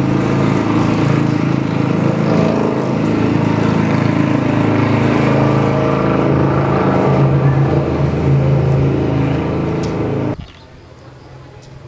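A motor engine running steadily and loudly, then cutting off abruptly about ten seconds in, leaving a much quieter background with a faint thin high whine.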